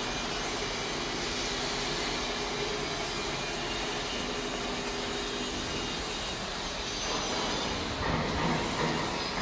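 Factory production-line machinery running steadily: a continuous mechanical noise with a few faint steady hums, getting a little louder and rougher about seven seconds in.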